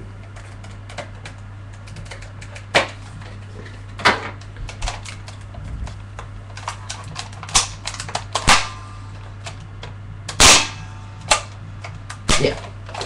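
Spring-powered airsoft AK-47 being cocked and fired by hand: about seven sharp plastic clacks and snaps at uneven intervals, the loudest about ten and a half seconds in. The need to cock it by hand for every shot is the sign of a spring gun rather than an electric one.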